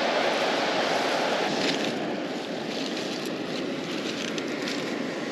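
The sea roaring: a steady rushing of surf, easing a little about two seconds in, with a few faint rustles.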